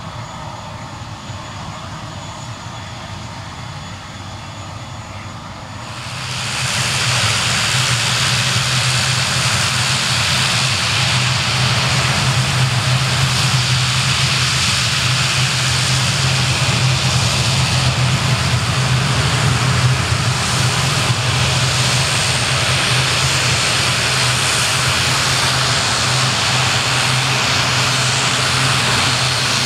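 Twin turboprop engines of an ATR 72-600 airliner running, propellers turning, as a steady low drone with a hissing wash. It starts as a quieter hum and jumps to much louder about six seconds in.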